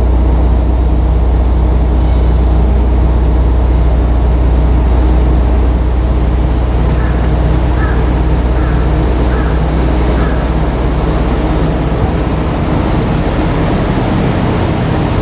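JR Kyushu KiHa 47 diesel railcars running, a steady low engine drone with a deep hum underneath.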